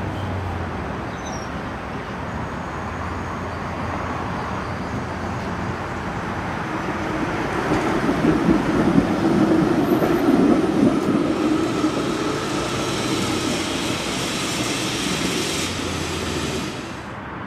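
Electric tram pulling away and running past, its wheels rumbling on the rails, loudest about halfway through and then dying away.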